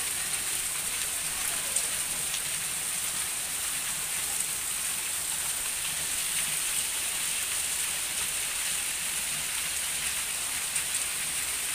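Heavy rain falling steadily, a continuous hiss with now and then a faint tick of drops striking close by.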